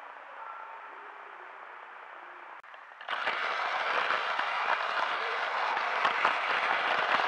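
A quiet stretch with faint room hum. About three seconds in, a battery-powered Plarail toy train's motor and wheels start a loud, dense crackling rattle on the plastic track, heard from a camera riding on the train.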